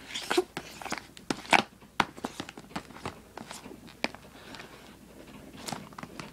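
Hard clear-plastic clamshell packaging crackling and clicking as it is gripped and pried at: an irregular string of sharp clicks, the loudest about a second and a half in.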